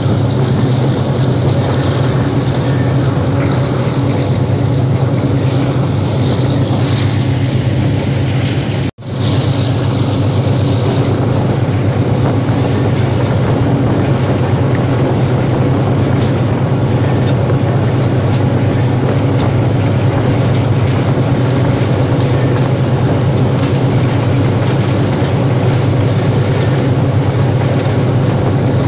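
Diesel-electric banker locomotive working under load, pushing a passenger train up a steep mountain gradient: a loud, steady low engine drone. The sound briefly cuts out about nine seconds in.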